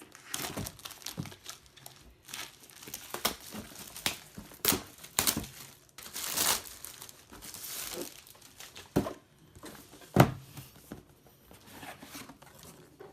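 Cardboard mystery box being unboxed by hand: packing crumpling and tearing in a run of short rustles and clicks, with a longer rustle midway and a sharp knock about ten seconds in.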